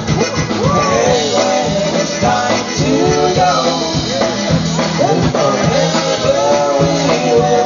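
Live polka band playing dance music, with steady held bass notes under the melody.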